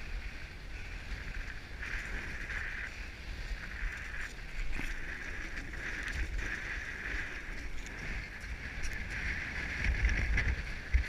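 Rumbling wind and movement noise on a body-worn action camera's microphone while running outdoors, with louder low thumps near the end as the wearer climbs over a barrier.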